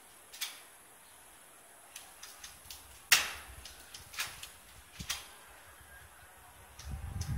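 Airsoft guns firing: about ten irregular sharp snaps, scattered singly and in short clusters, the loudest about three seconds in. A low rumble rises near the end.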